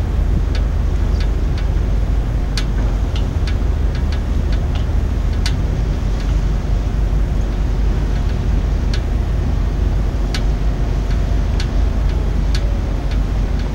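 Steady low outdoor rumble with irregular sharp ticks scattered through it, one or two a second.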